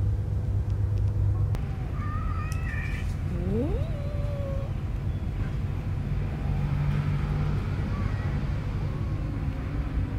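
Newborn kittens mewing in short, thin, high cries from about two seconds in, with one rising call near the middle and fainter mews after it. A low steady rumble runs underneath.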